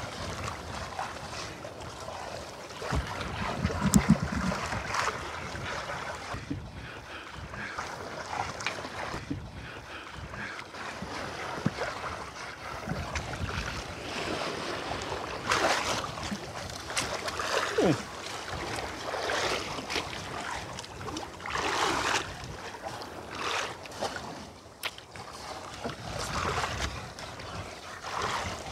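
Sea water lapping and sloshing against the hull of a small fishing boat, with wind on the microphone and occasional knocks and rustles from handling on board.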